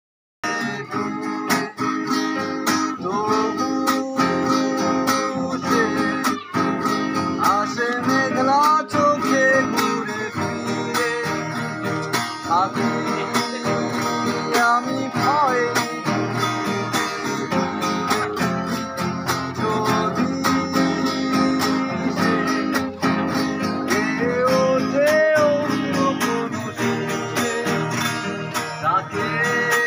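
Two acoustic guitars played together, plucked and strummed, with a man singing along.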